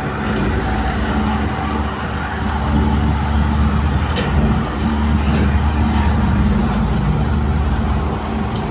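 Steady road and engine noise heard inside a vehicle's cabin moving at highway speed, a constant low hum with tyre noise over it.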